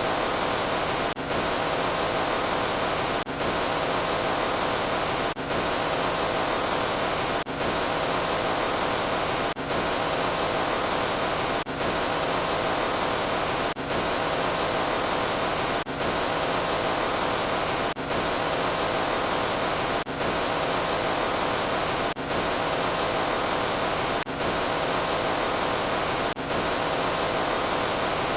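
Steady hiss of static noise, cut by a brief break with a faint click about every two seconds, as the same noise sound effect is repeated.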